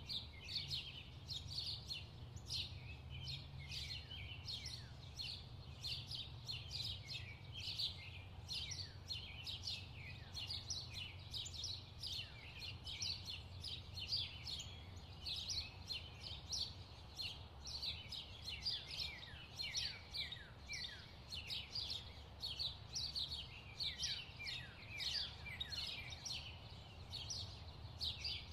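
A chorus of many songbirds chirping and singing without pause, a dense run of short falling chirps, over a low steady hum.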